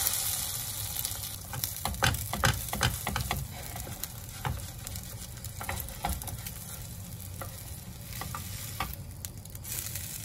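Slice of bread going into hot oil in a frying pan, sizzling at once and on steadily, with a wooden spatula scraping and tapping against the non-stick pan as the bread is pushed and pressed down.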